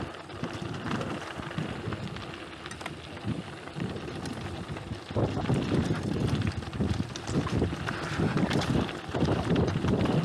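Mountain bike rolling fast downhill on a loose gravel track, its tyres crunching over stones and the bike rattling, with wind buffeting the microphone. It gets louder about five seconds in.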